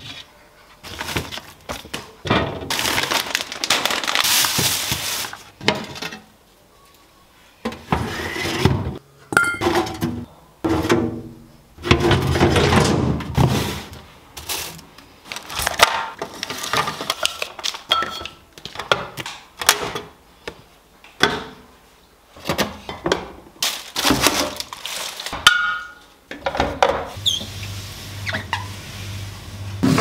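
Food containers being moved about in a refrigerator: glass jars and bottles clinking and knocking on glass shelves, and plastic drawers being handled. There are many separate knocks, with longer stretches of handling noise.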